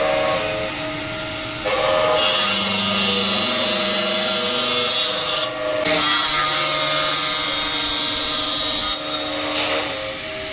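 Stone CNC router's cutting saw running with a steady whine, and two stretches of loud, high hiss a few seconds each, typical of the blade cutting stone.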